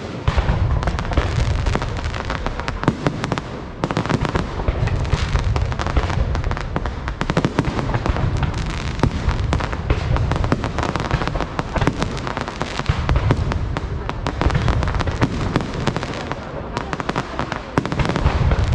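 Dense barrage of aerial fireworks: rapid crackling reports layered over heavy low booms, almost without a break, easing briefly about four seconds in.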